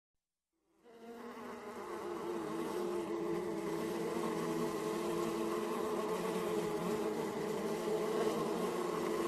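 Bees buzzing, several wavering drones overlapping, fading in from silence over the first couple of seconds and then holding steady.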